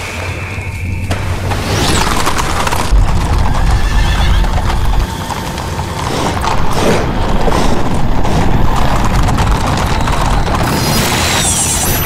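A horse whinnying, with hoofbeats.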